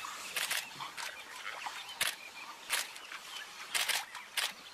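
Short, sudden splashes in shallow water as an African wild dog holds an impala ram by the face and the impala pulls against it, about five in all. Faint high chirping calls come between the splashes.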